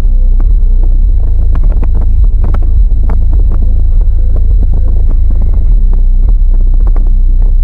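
Car-audio subwoofer playing deep, steady bass at very high level, close enough to overload the recording, with frequent crackles and clicks over it.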